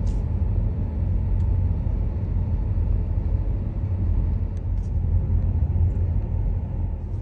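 Steady low rumble of road and engine noise heard from inside a moving car's cabin, with a few faint ticks.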